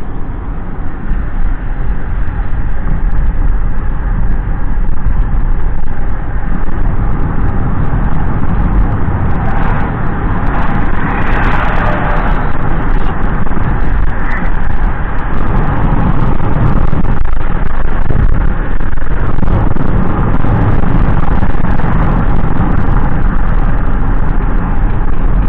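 Steady road and engine noise inside a moving car. About halfway through, a transit bus passes close alongside, its noise swelling and fading over a few seconds.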